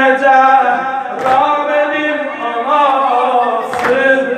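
Male mourners chanting a Muharram lament in unison, with the group's chest-beating strikes landing together on a slow beat, twice: about a second in and near the end.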